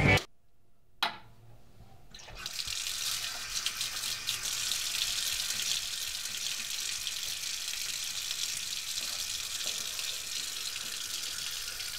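Water running from a wall tap into a sink and over a person's hands, a steady splashing hiss that starts about two seconds in. Before it, music cuts off at the very start and a single knock follows about a second in.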